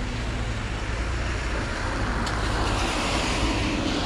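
Steady low rumble and hiss of outdoor background noise, swelling a little in the second half.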